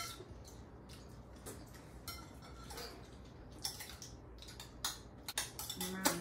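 Scattered light clinks and taps of plates, bowls and cutlery during a meal at a dinner table, some with a brief ringing tone.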